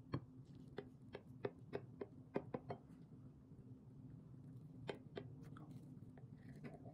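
Kitchen knife cutting through the crisp, caramelized top crust of a burnt Basque cheesecake: a quick run of about ten small crackles over the first three seconds, then two more about five seconds in. A faint steady hum lies underneath.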